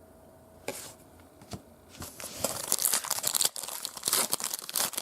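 A foil trading-card pack wrapper being torn open and crinkled by hand. Two short rustles, then a continuous crackling tear from about two seconds in.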